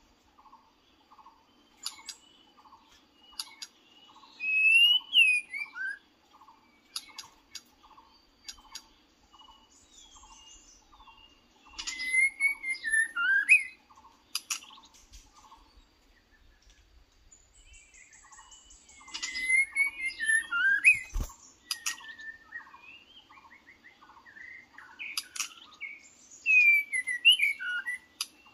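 White-rumped shama singing in four bursts of rich, varied whistled phrases, over a soft chirp that repeats about one and a half times a second. One sharp knock about two-thirds of the way through.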